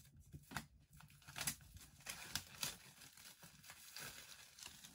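Wrapping being crinkled and torn as books are unwrapped: faint, scattered rustles and short rips.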